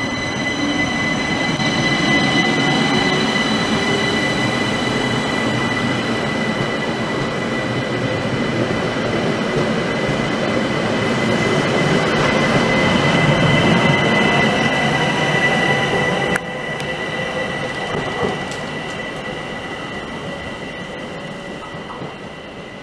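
ÖBB class 4024 Talent electric multiple unit pulling out past on the adjacent track, its traction motors giving a steady high whine over wheel and running rumble, with a few rising tones in the first seconds as it gathers speed. The sound grows louder as the cars pass, then drops suddenly about 16 seconds in and fades off.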